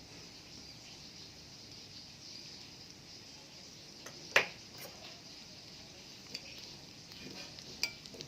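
Quiet kitchen with a steady faint hiss, broken by one sharp click of kitchenware about four seconds in and a few lighter clicks later.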